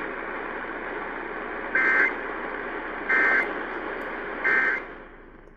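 Three short bursts of Emergency Alert System data tones, the end-of-message code sent after the spoken warning, over AM radio hiss. Each burst is a brief two-tone buzz, about a second and a half apart, and the hiss fades away near the end.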